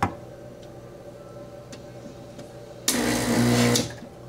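A sharp clunk at the start, then about three seconds in the La Pavoni Cellini espresso machine lets out a loud hiss over a low pump hum for about a second before cutting off.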